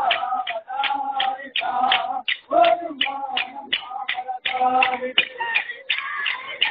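A group of voices singing together, with a sharp, regular beat of about two to three strokes a second running under the song.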